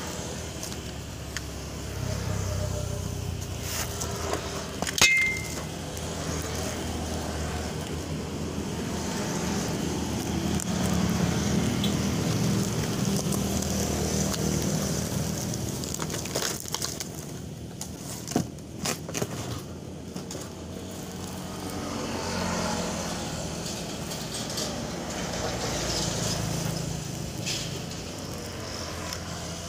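Cardboard box and plastic packaging being opened and handled: scattered clicks, crackles and rustles over a low rumble that swells and fades. A brief sharp squeak comes about five seconds in.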